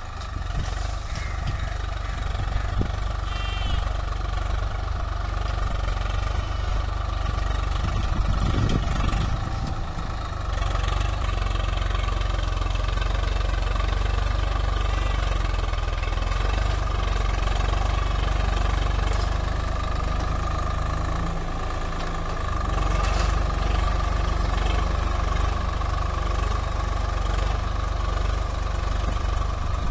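Swaraj 744 FE tractor's three-cylinder diesel engine running steadily as it pulls a nine-tine cultivator through the soil.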